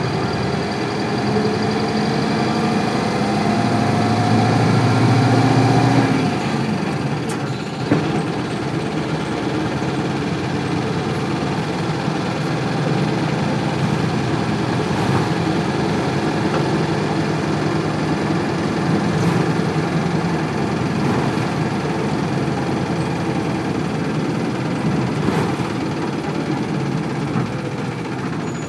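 1998 Isuzu Cubic bus's 8PE1 V8 diesel engine, heard from inside the bus, pulling with a rising pitch for about six seconds, then easing off suddenly into a steady rumble. A few faint knocks come through later.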